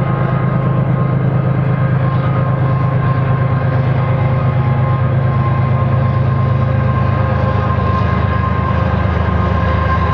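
Diesel-electric locomotives (GE ES44ACs) on a loaded coal train, their engines working under load with a steady low drone and a steady higher tone above it.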